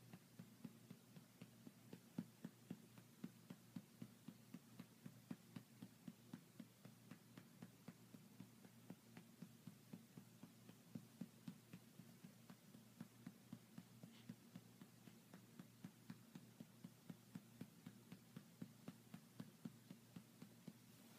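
A hand patting a baby's back to bring up a burp: faint, soft, even pats, a little over three a second.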